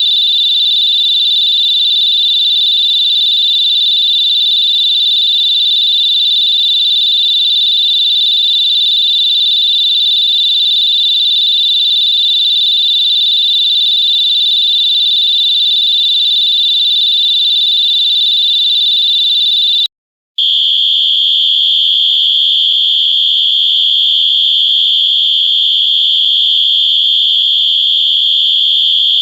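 Electronic whistle sounding one continuous, shrill high tone. About twenty seconds in it stops for a moment and a second electronic whistle starts, holding a slightly lower steady tone.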